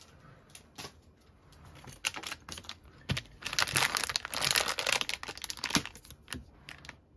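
Foil blind-bag packet crinkling as it is handled and torn open, with scattered crackles at first and a dense, loud stretch of crinkling from about three and a half to six seconds in.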